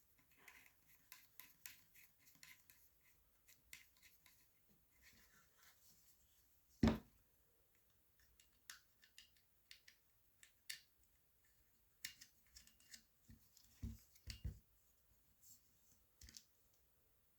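Faint clicks and light scraping of small parts and screws being handled during the reassembly of a paintball marker's receiver, with one sharper knock about seven seconds in and a few more knocks near the end.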